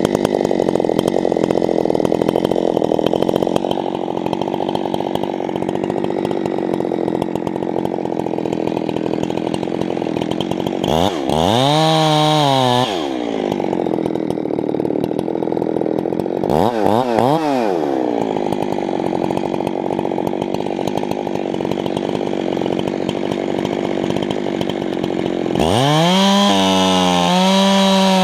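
Two-stroke chainsaw idling and being revved up to full throttle three times: for about two seconds near the middle, briefly a few seconds later, and again near the end, where it holds high for about three seconds.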